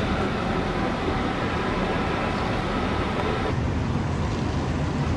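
Steady rumble and rushing noise aboard a river cruise ship under way: the ship's engine hum with water along the hull. About three and a half seconds in the hiss drops and the low hum grows stronger.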